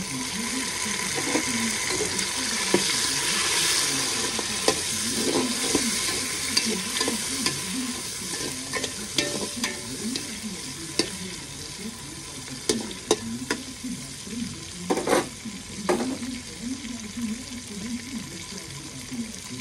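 Chopped tomatoes frying in hot oil with onions and green chillies in a metal pot, sizzling while a metal spoon stirs them, scraping and knocking against the pot. The sizzle is strongest in the first few seconds; the spoon knocks grow more frequent later, with two louder clanks near the end.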